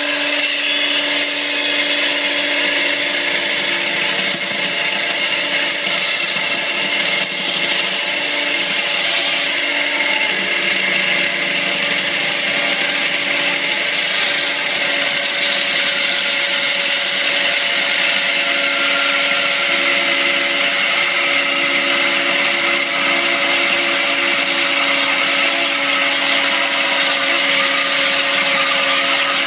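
Hydraulic chainsaw cutting concrete: a loud, steady grinding hiss with a constant low whine, the saw held at an even speed throughout.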